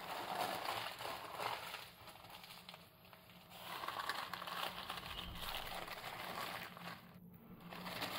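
Baking parchment rustling and crinkling as it is unwrapped and opened out from around a rolled sponge cake, with a lull about two seconds in.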